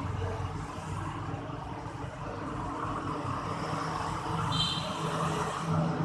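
A vehicle engine running with a steady low hum over background noise. A short high chirp comes about four and a half seconds in.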